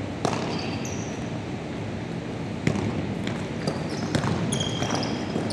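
A basketball bouncing a few times on a wooden gym floor, at uneven intervals, with brief high squeaks of sneakers on the hardwood and the steady background noise of a large hall.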